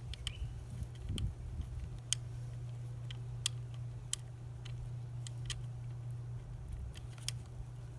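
Scattered light ticks and clicks of small bolts and tail-light parts being handled and tried against their mounting holes, over a steady low hum.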